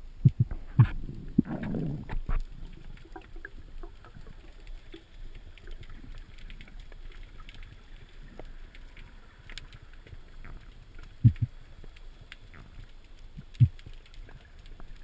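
Underwater sound picked up by a spearfisher's camera: several dull knocks and a short rush of noise in the first two seconds, then a faint steady hiss broken by two more sharp knocks later on.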